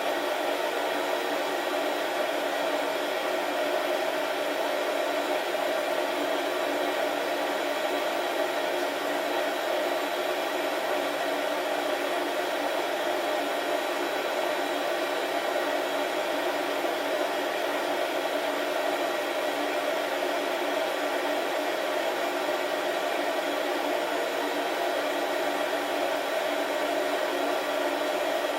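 Beanbon home coffee roaster running steadily mid-roast, its fan giving an even whooshing blow with no cracking pops.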